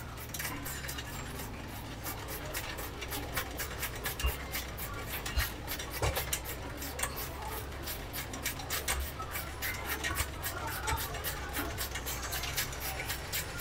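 Small metal clicks with rubbing and scraping as a bolt is threaded and turned into a motorcycle pannier mount, with a few louder knocks of metal on metal around four to six seconds in.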